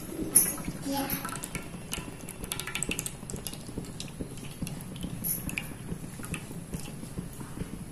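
Cooking oil being poured from a bottle into a metal pan: a light pouring trickle, with small clinks and taps over the first few seconds.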